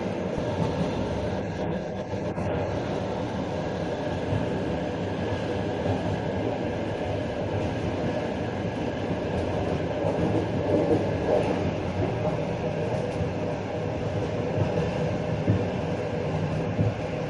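Passenger train running along the line, heard from aboard: a steady rumble of wheels on rails, with a few brief louder knocks.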